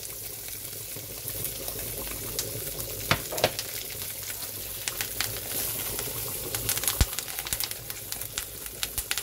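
Sea bream fillets frying in butter in a pan: a steady sizzle with scattered crackles, and a couple of sharper clicks about three and seven seconds in.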